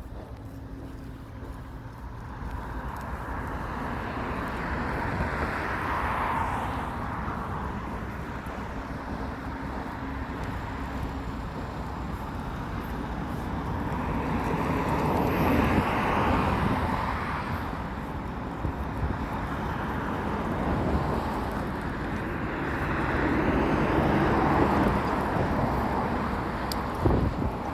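Road traffic: vehicles pass one after another, each swelling and fading, three times, over a steady low rumble.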